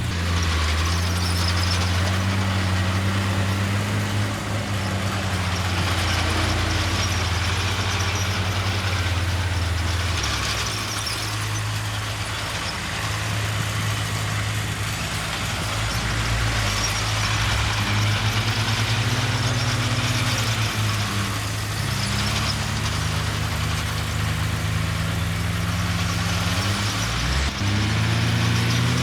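Heavy diesel engine of a crawler bulldozer working under load, its note rising and falling several times as the load changes, over a steady high-pitched noise.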